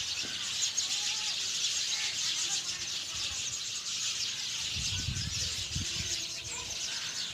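A dense chorus of many small birds chirping at once, a steady wall of high twittering. There is some low rumbling about five seconds in.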